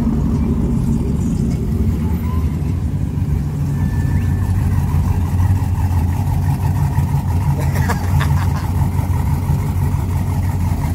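A vehicle's engine running with a steady low drone.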